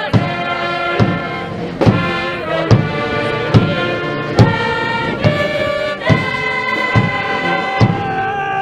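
A university cheering squad's brass band plays a march-like school song, with a drum beat about every second and a chorus of voices singing along.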